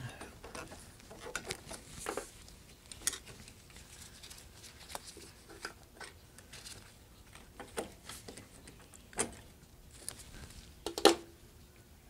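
Scattered light clicks, taps and rubbing of hands fitting the fuel line onto a small lawn mower engine's carburetor, with one sharper click near the end.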